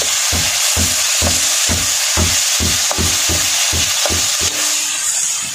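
Tomatoes, onion and garlic sizzling in oil in a metal wok while a metal spatula stirs them, scraping and knocking against the pan in quick regular strokes, about three a second, that stop near the end.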